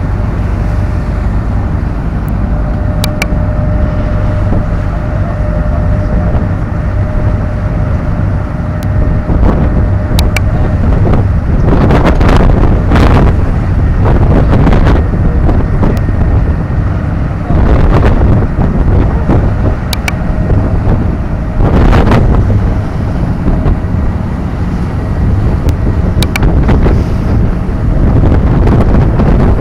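Car ferry under way: a steady low engine rumble and churning wake, with a faint steady hum at one pitch. Wind buffets the microphone in strong gusts, loudest midway and again later on.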